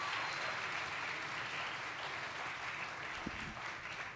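Audience applauding, the applause slowly dying away.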